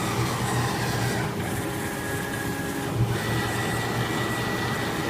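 Fabric-cutting CO2 laser cutter running, its head-moving motors giving a high whine that breaks off and changes pitch every second or two as the head moves, over a steady machine hum. A brief knock about three seconds in.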